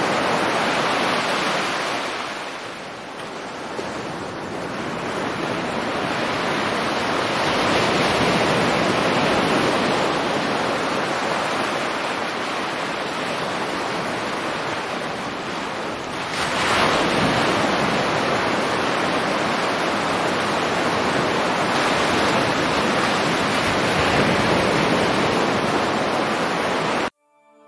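Sea waves washing: a steady rushing surf noise that swells and eases over several seconds, cutting off suddenly near the end.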